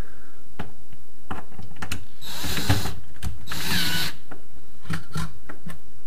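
Cordless drill-driver driving self-tapping screws through a metal drawer slide into a cabinet side panel: two short runs of the motor, about two and a half and four seconds in, with sharp clicks before and after.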